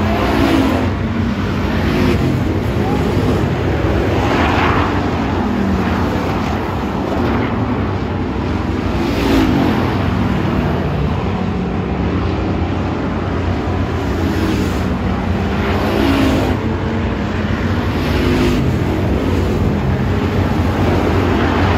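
Several hobby stock race cars running laps on a dirt oval. The engines drone steadily, and their note rises and falls in loud swells several times as cars pass close by.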